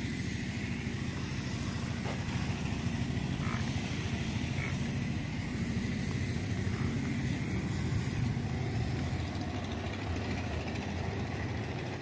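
A steady, low engine hum runs evenly throughout, without revving or breaks.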